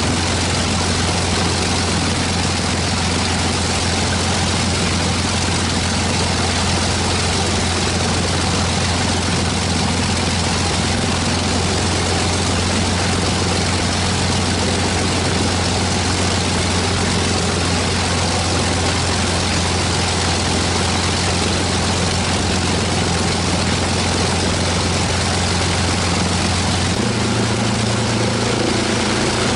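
The de Havilland Mosquito's Rolls-Royce Merlin V12 running steadily on one engine during a ground run after restoration, its propeller turning. The engine note shifts near the end.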